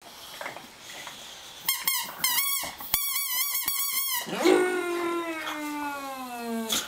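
A boxer dog "singing": a run of short, high-pitched wavering whines, then one long howl that slides slowly down in pitch and breaks off near the end.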